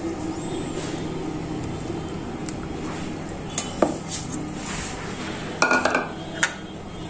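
Utensils and a bowl clinking and knocking against a steel mixing bowl as yogurt is tipped out onto onion paste: scattered light clicks, the sharpest about four seconds in and a short cluster of knocks near six seconds, over a steady low hum.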